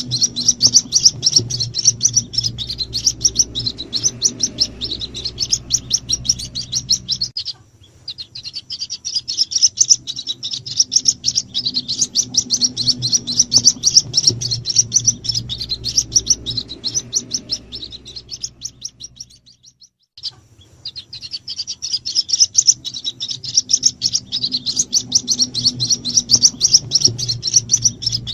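White-breasted waterhen chicks peeping in a rapid, continuous stream of high chirps, a lure call that draws in the adult waterhens. The calling breaks off briefly about a quarter of the way in, and again for about a second two-thirds of the way through.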